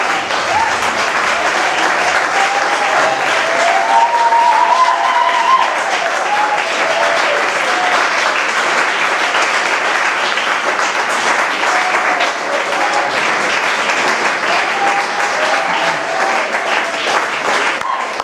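Audience applauding, a dense steady clapping with a few voices calling out over it; the clapping begins to thin out into separate claps at the very end.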